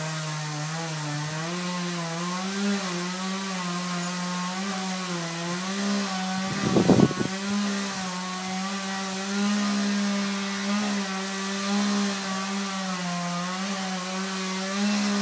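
Two-stroke chainsaw running steadily under load as it cuts through a tree trunk, its pitch wavering slightly, with a brief louder burst about halfway through.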